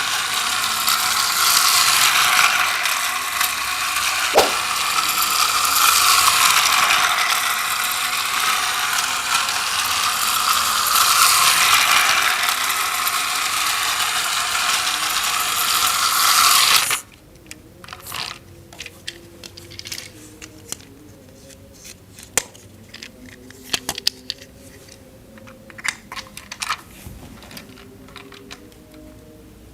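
A battery-powered toy train's small motor and plastic gears running with a loud grinding whir. It stops suddenly about halfway through, leaving scattered light plastic clicks and taps.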